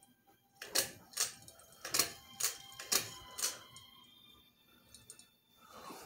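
Ceiling fan pull-chain switch clicking as the chain is pulled to step the fan from low to medium speed: six or seven sharp clicks spread over about three seconds, starting just under a second in.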